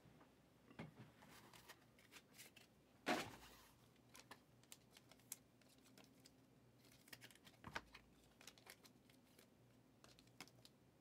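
Faint scattered rustles and light clicks of trading cards being handled, with a louder rustle about three seconds in.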